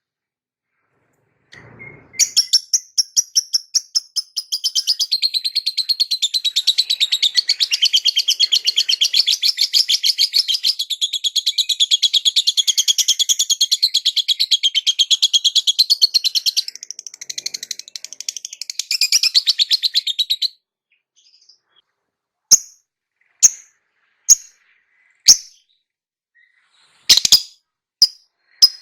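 Lovebird singing a long, fast chattering trill, then, after a brief pause, giving single sharp chirps about once a second.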